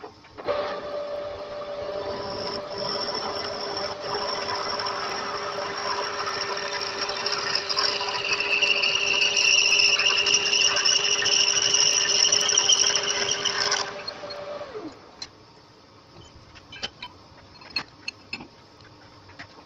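Metal lathe spindle running with a steady gear whine while a twist drill in the tailstock bores into an aluminium blank, adding a high cutting squeal that grows louder in the second half. About two-thirds through, the cutting stops and the spindle whine drops in pitch as the lathe winds down. A few sharp clicks and clinks follow as the drill is handled.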